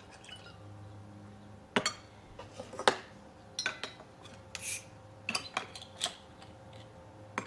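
Scattered sharp clicks and clinks of glass and metal on a serving tray as a shot glass is set down and a metal bottle opener is worked against the cap of a glass beer bottle, with a brief hiss near the middle.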